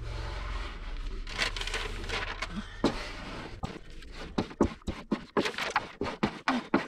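Adhesive foil being smoothed onto a panel over soapy water with an old drawing triangle used as a squeegee: scraping and crinkling of the film. A quick, uneven run of taps and scrapes fills the second half, and a low background hum stops a little past halfway.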